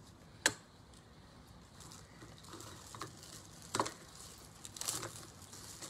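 A few short, sharp clicks and taps over a faint background hiss. The loudest comes about half a second in, with weaker ones near three and four seconds and a small cluster around five seconds.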